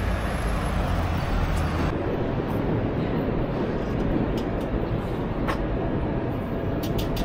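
Steady city street noise: a continuous rumble of traffic, heaviest in the first two seconds, with a few faint clicks.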